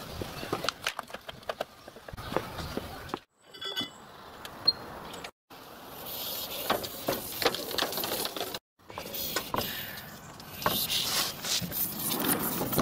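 Knocks, clunks and rattles of metal equipment being handled and set down in a car boot, then a miniature steam locomotive being pulled out of the car along a metal ramp, with scraping near the end. Short clips are cut together, with brief silent gaps between them.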